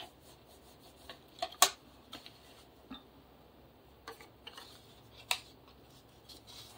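Paper being creased along its score lines with a bone folder and handled on a work surface: a few scattered sharp taps and short rubbing sounds.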